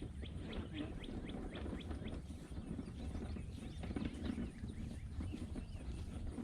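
A bird chirping: a quick run of short falling notes in the first couple of seconds, then scattered calls, over a steady low rumble.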